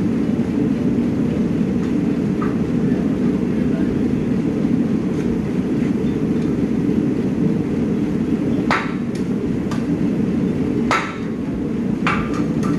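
Hammer blows on steel during forging: three strikes about half a second apart some nine seconds in, then three more over the following three seconds. A steady low rumble runs underneath throughout.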